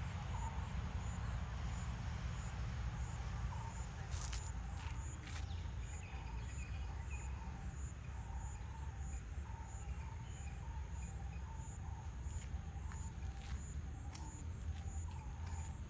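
Insects, crickets or similar, calling steadily: a continuous high-pitched drone with a regular lower chirp about twice a second. Low rumble underneath, with a few sharp clicks.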